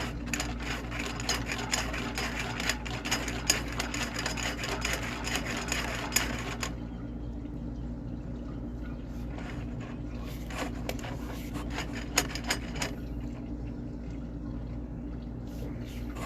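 Sewer inspection camera's push cable being fed off its reel, giving a rapid clicking rattle that thins out midway and picks up again near the end, over a steady low electrical hum from the camera unit.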